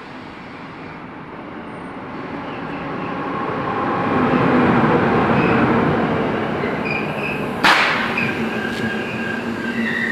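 RegioJet passenger train pulling into a station: the approaching locomotive grows louder over the first four seconds, then the coaches roll past with steady wheel-on-rail noise and short high squeals from the slowing wheels. A sudden sharp crack stands out about three-quarters of the way through.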